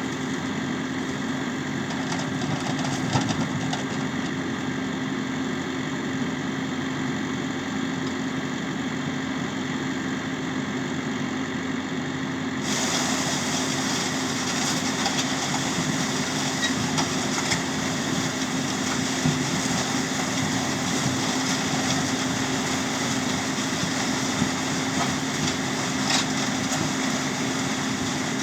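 New Holland T6 tractor engine running steadily, with a constant hum, during sugar beet harvesting. Roughly halfway through the sound turns brighter and a little louder, and light clatter comes through after that.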